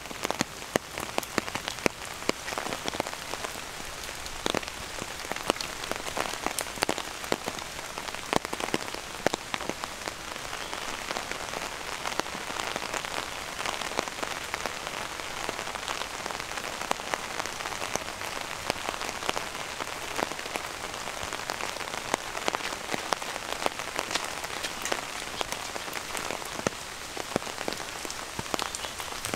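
Steady rain falling, an even hiss dotted with many sharp drops tapping close by.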